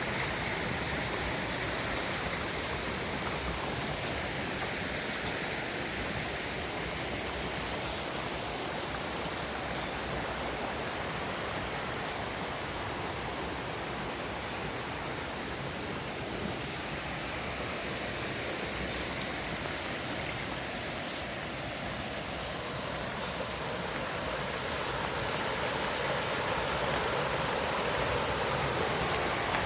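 Steady rush of flowing water, like a stream, swelling slightly louder near the end.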